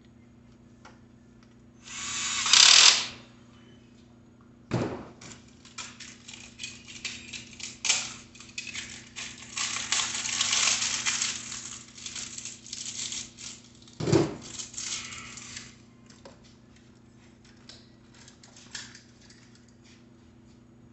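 A cordless drill runs in one burst of about a second, the loudest sound here. After that comes a long stretch of rustling, crinkling and clicking as small bike parts and their packaging are handled, with a couple of dull thumps. A steady low electrical hum runs underneath.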